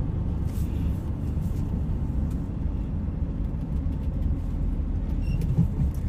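Steady low rumble of a vehicle's engine and tyres on the road, heard from inside the cab while driving.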